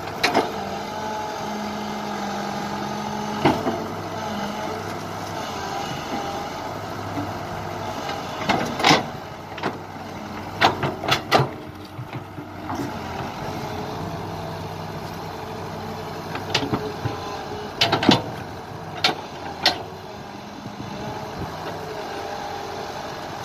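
Kobelco SK120 hydraulic excavator's diesel engine working steadily under load while the machine is bogged in deep mud and hauls itself out with its boom and bucket. Sharp knocks come every few seconds, some in quick pairs, from the bucket and steel tracks.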